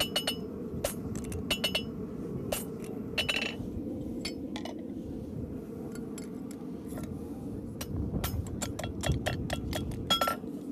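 Farrier's hammer striking a steel horseshoe on an anvil while forging it: ringing metallic clinks at an uneven pace that come quicker over the last few seconds, over a steady low rumble.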